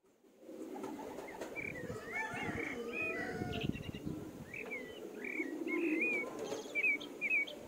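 A flock of ducklings and chicks peeping in quick, high, curling calls as they feed, over a steady low cooing murmur from adult birds. The loudest peeps come near the end.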